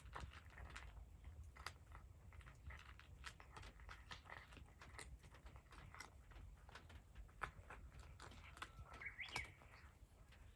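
A cat chewing, heard as faint crunching clicks scattered throughout. About nine seconds in comes one short rising call.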